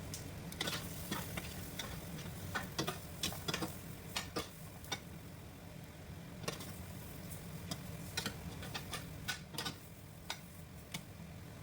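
A cooking utensil stirring pork hocks with sautéed garlic and onions in a pot, with irregular clicks and scrapes against the pot over a faint steady low hum.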